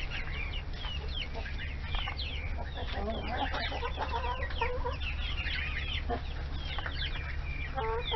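Chickens clucking in a yard, with many short, high chirps throughout and a fuller pitched call near the end.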